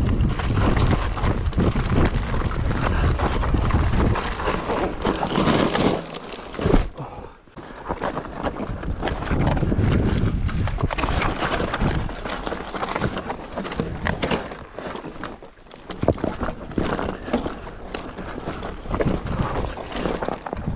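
Mountain bike clattering and knocking over a rocky mountain path on a descent, with wind rumbling on the microphone for about the first six seconds.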